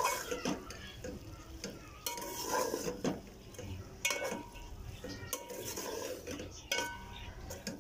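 Metal spoon stirring minced beef and potato pieces in an aluminium cooking pot, scraping and knocking against the pot's sides in repeated strokes, several of them giving a short metallic ring.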